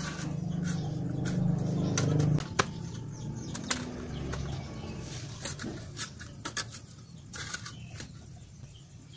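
Hands working in loose garden soil and brushing ginger stems and leaves while planting small ginger seed pieces: scattered rustles, scrapes and light clicks. A low steady hum runs through the first two and a half seconds, then stops.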